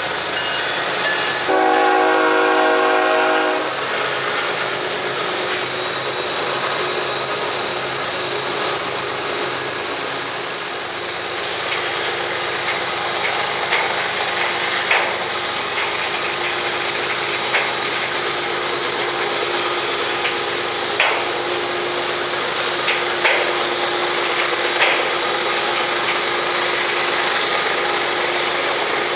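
Freight train's diesel locomotive horn sounding once for about two seconds near the start, then the steady rumble and rail noise of the passing train, with a few sharp knocks in the second half.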